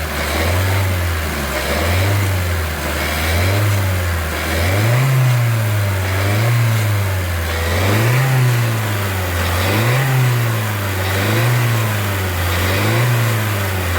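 Suzuki Swift Sport ZC33S 1.4-litre turbo four-cylinder heard close up in the engine bay, revved up and down in a regular cycle about every one and a half seconds. This is the engine being run to bring out an abnormal chattering 'cha-cha-cha' noise.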